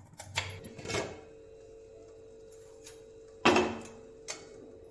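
A couple of light knife taps on a wooden cutting board near the start, then about three and a half seconds in a single loud metallic clank with a short ring as a stainless steel pot of boiling potatoes is handled, its lid coming off. A faint steady tone runs underneath.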